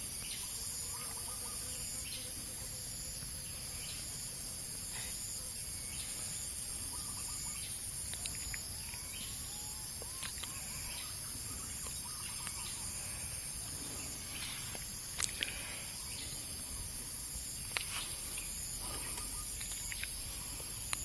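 Outdoor ambience: scattered short bird calls over a steady high hiss, with a few sharp clicks in the second half.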